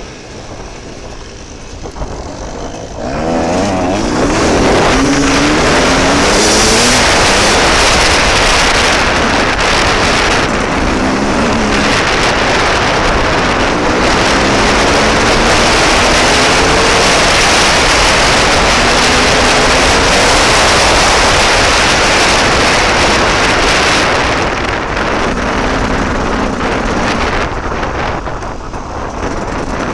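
Dirt bike engine revving up several times as it accelerates over rough grass. Heavy wind noise on the helmet microphone covers most of it and eases near the end.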